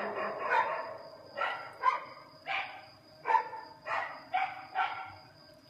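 A dog barking about eight times in quick succession, each bark short and fainter than the chanted call.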